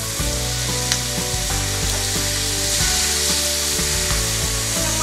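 Eel stir-fry with lemongrass and chili sizzling in a hot wok, a steady hiss that grows a little fuller midway.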